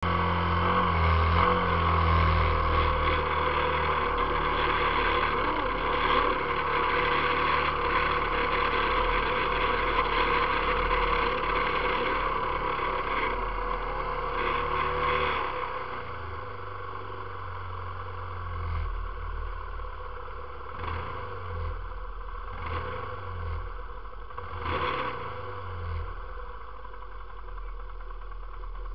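ATV engine running, loud and steady for about the first fifteen seconds, then dropping to a lower run with several short revs.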